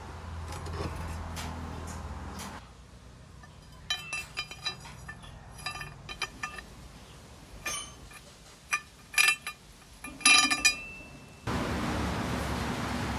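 Sharp metallic clinks and taps, some with a brief ring, as a brass lead-screw nut and a steel lead screw are handled and knocked together, in scattered groups over several seconds. A steady hiss of background noise fills the start and returns near the end.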